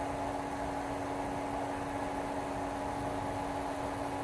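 Steady low electrical hum with an even hiss.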